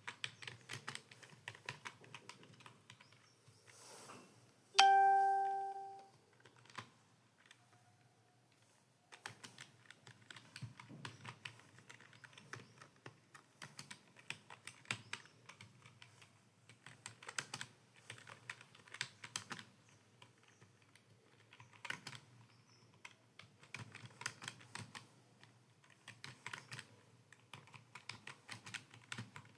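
Fast typing on a computer keyboard, keystrokes clattering in quick runs, with a lull about seven seconds in. About five seconds in, a single loud chime rings and fades over about a second.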